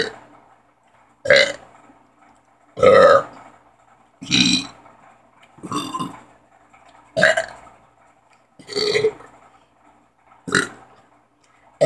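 A boy burping over and over, about eight loud belches in a row, one every second and a half or so, with short pauses for breath between them.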